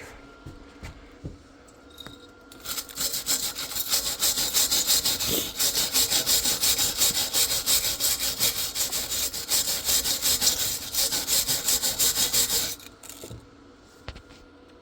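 Hand-held steel wire brush scrubbing freshly welded steel, cleaning the new hinge welds. It goes in quick back-and-forth strokes, about four a second, starting a couple of seconds in and stopping near the end.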